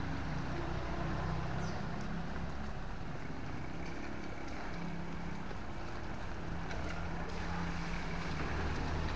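A motor engine running steadily at a low pitch, over an even hiss.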